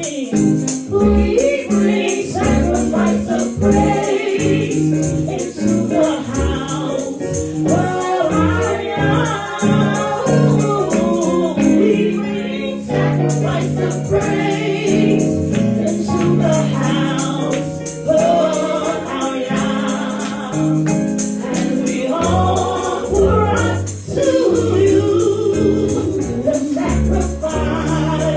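Gospel-style worship song with a group of voices singing together over sustained keyboard chords and a steady shaken hand-percussion rhythm.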